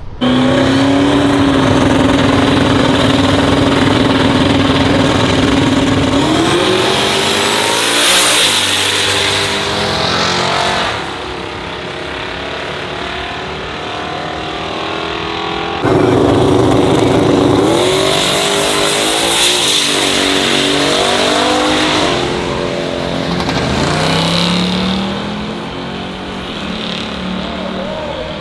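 Loud race car engines idling and revving, with rising and falling pitch as cars accelerate and pass by. The sound jumps abruptly to another loud engine about halfway through.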